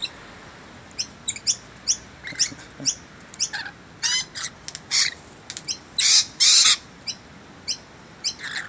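Noisy miners and rainbow lorikeets calling: a string of short, sharp, high calls, with two loud, harsh screeches about six seconds in.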